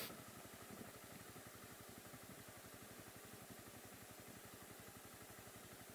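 Honda CB250R's single-cylinder engine running at low revs, heard faintly through a helmet camera's microphone as an even, rapid low pulsing, with a brief click right at the start.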